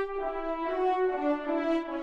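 Sampled French horn ensemble from the CineBrass library playing long, sustained notes: two or three notes sound together and move to new pitches every half second or so, in a slow legato line.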